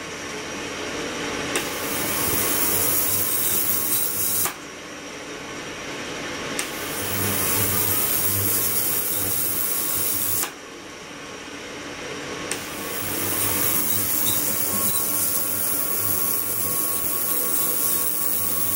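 Ultrasonic tank running with its water circulating: a steady hissing noise. It drops away abruptly twice, a few seconds apart, and each time builds back up over a couple of seconds, with a small click as the hiss returns in full.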